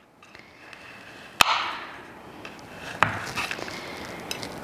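Chef's knife chopping chocolate-covered caramels on a cutting board: a sharp knock of the blade on the board about one and a half seconds in, another about three seconds in, and a few fainter clicks after.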